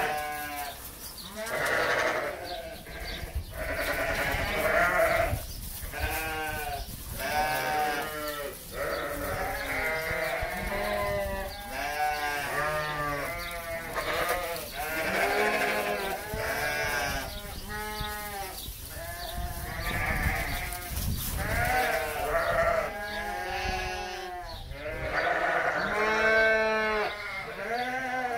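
A flock of ewes bleating over and over, a new call about every second and many of them overlapping.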